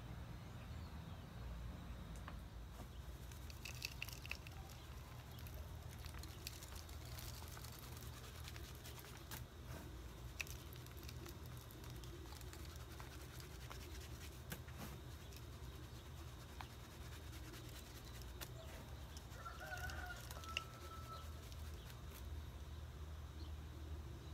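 Hens calling faintly, briefly about four seconds in and again near the end, over a steady low hum and light scattered ticks.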